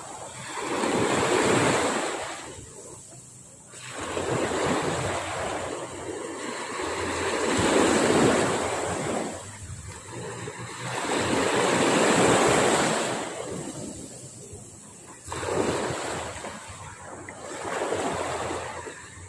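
Sea waves breaking and washing up a beach, the surf swelling and falling back every three to four seconds.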